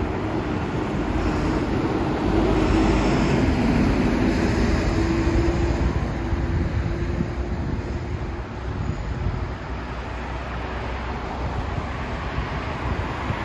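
Street traffic: a vehicle passing close, its hum and tyre noise swelling over the first few seconds and fading after about six seconds, over a steady low traffic rumble.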